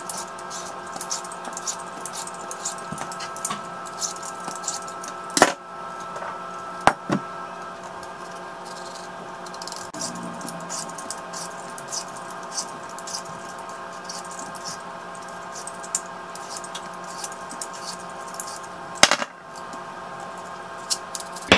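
Vegetable peeler scraping along zucchini in many short strokes, then a knife trimming and slicing it, with a few sharp knocks, over a steady faint drone.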